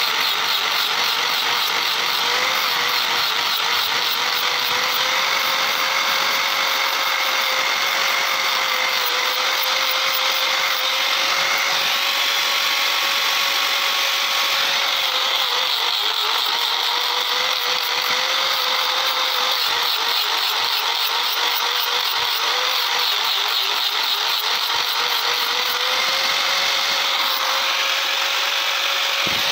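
Angle grinder with a sanding disc running steadily while grinding and smoothing a cast aluminium dagger, a continuous whine that wavers a little in pitch over a hissing grind.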